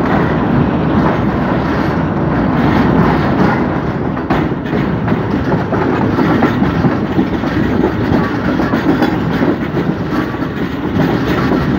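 A passenger train's coach wheels running on the rails, heard from the open doorway of a moving carriage as a loud, steady rumble and rattle.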